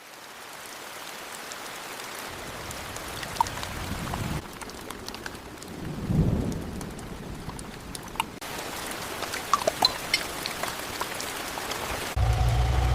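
Steady rain with drops pattering, and low rolls of thunder about four and six seconds in. Near the end a low steady hum sets in.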